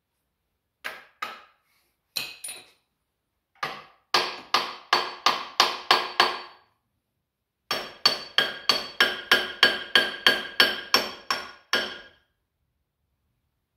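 Hammer blows on metal, each with a short ring. First come a few single and paired blows, then two steady runs of about three blows a second, the second run the longer.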